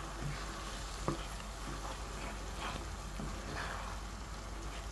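Wooden spatula stirring thick lapshi, cracked-wheat porridge cooking in ghee with melted jaggery in a non-stick pan, over a soft, steady sizzle, with a light knock of the spatula about a second in.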